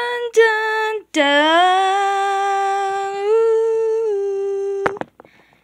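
A person humming a tune with no accompaniment: two short notes, then one long held note that steps up in pitch partway through and back down, stopping about five seconds in.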